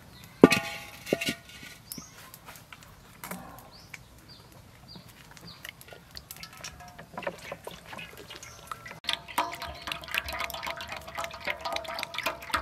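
A steel wok set down on a clay stove with a sharp clang that rings briefly, about half a second in. Later, cooking oil poured from a plastic bottle splashes and gurgles into the empty metal wok, getting louder over the last few seconds.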